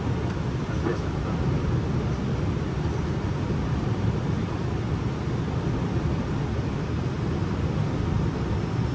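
Steady low rumble of airflow and engines inside an Airbus A320 cockpit on approach.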